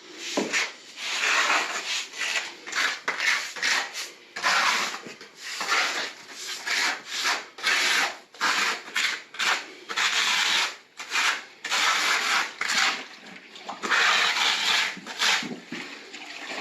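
Repeated back-and-forth scrubbing strokes across terracotta floor tile, uneven in length at roughly one or two a second.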